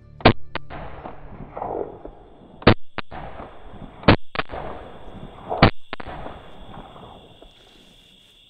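Four pairs of sharp knocks, each a loud hit followed by a softer one, with an echoing decay after each pair. A steady high insect trill runs underneath.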